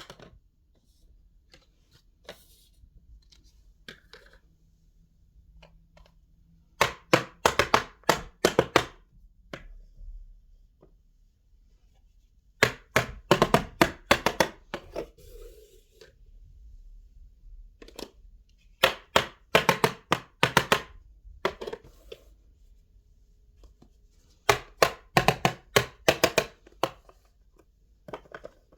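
A knife chopping on a small cutting board in quick runs of sharp strikes, four runs of about two seconds each with pauses between.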